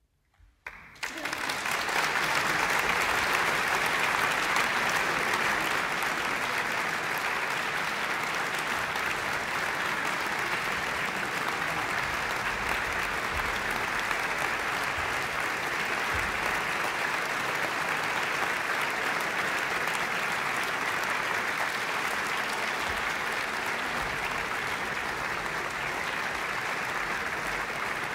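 Large concert-hall audience applauding: a few scattered claps about a second in, then full, steady applause that holds without let-up.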